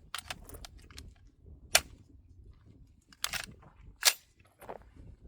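Gunshots: two sharp reports about two seconds apart, with a smaller cluster of cracks between them and a few fainter ones around.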